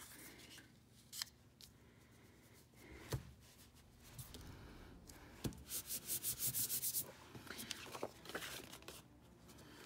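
Hands pressing and rubbing a freshly glued paper cutout flat onto a paper card, faint, with a few light taps and a quick run of back-and-forth rubbing strokes a little past halfway.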